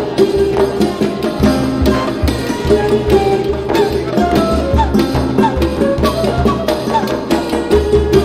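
Background music: a folk-style tune with a steady hand-drum beat under a melody of short notes.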